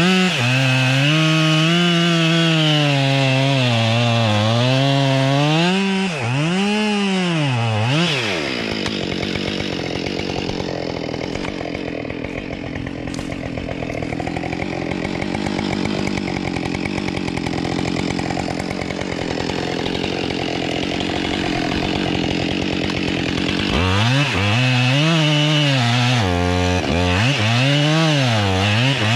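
Husqvarna 572 XP two-stroke chainsaw cutting into a black walnut trunk, its engine pitch dipping and rising as the chain bogs and frees in the wood. After about eight seconds it runs lower and rougher, out of the cut. Near the end it bites into the wood again with the same rising and falling pitch.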